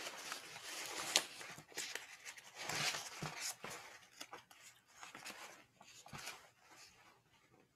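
Paper pages rustling and being turned, a scatter of soft crinkles and small clicks that die down over the last few seconds.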